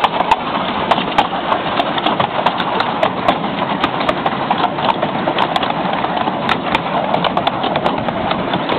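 Ride on a miniature railway train: carriage wheels clicking and clattering over the rail joints, with a steady running rumble underneath.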